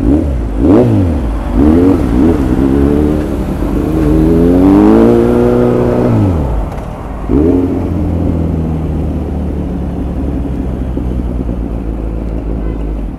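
Kawasaki Z900's inline-four engine being revved, several quick throttle blips and one longer rev that falls away, then settling to a steady idle for the last few seconds.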